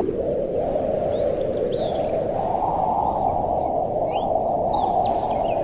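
Strong wind blowing steadily, growing a little fuller about halfway through, with a few short bird chirps over it.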